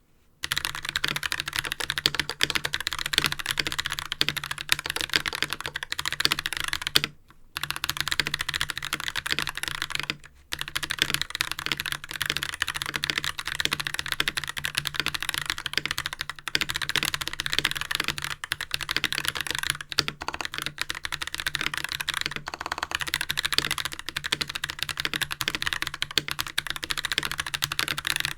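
Fast, continuous typing on a Hansung TFG Art mechanical keyboard with tactile Holy Panda switches lubed with Krytox 205g0 and ABS GMK Oblivion keycaps. Dense key clacks start about half a second in, pausing briefly twice in the first ten seconds.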